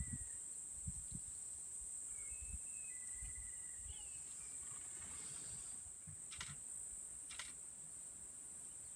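Steady high-pitched drone of insects, with a few faint bird whistles and two short clicks in the second half.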